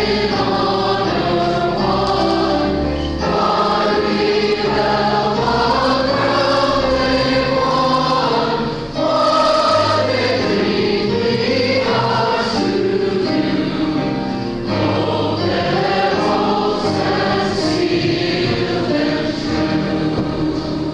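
A choir singing in parts over steady held low accompanying notes.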